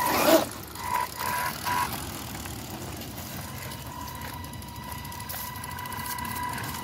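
Electric drive motors of a twin-motor 6x6 Wltoys 124018 RC truck on its stock 2S electronics. A loud burst with a rising whine comes as it pulls away, then three short throttle blips about a second later, then a steady high whine as it drives on.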